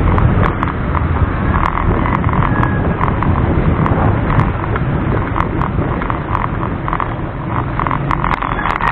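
Steady wind and road rumble on a bicycle-mounted camera while riding over a concrete street, with frequent small rattling clicks.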